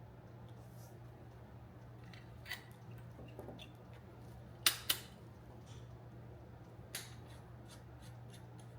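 A few light clicks and taps, with two sharp ones close together about halfway through, over a steady low hum.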